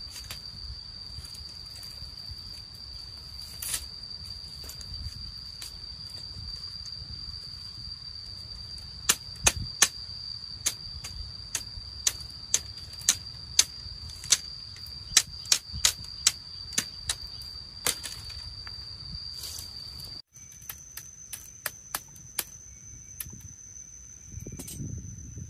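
Sharp knocks, roughly one or two a second, come in a run from about a third of the way in to near the end, over the steady high-pitched drone of insects. The drone shifts abruptly to a higher pitch near the end.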